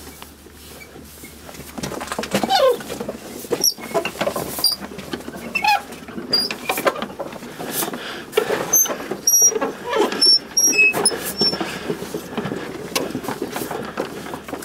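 Row of prayer wheels spun one after another by hand, starting about two seconds in: irregular squeaks and creaking from the turning drums on their spindles, with light knocks and slaps as the palm strikes each drum.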